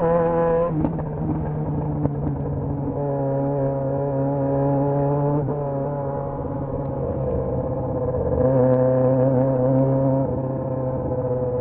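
Yamaha XJ6's 600 cc inline-four engine running loud, holding a steady note whose pitch steps up or down a few times as the revs change.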